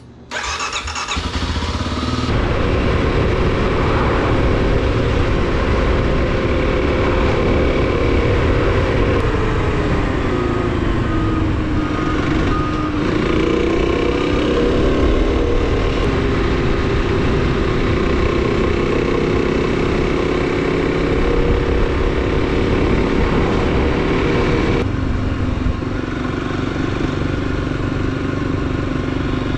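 Off-road motorcycle engine running while riding, its note falling and then climbing again around the middle, with a steady low rumble underneath.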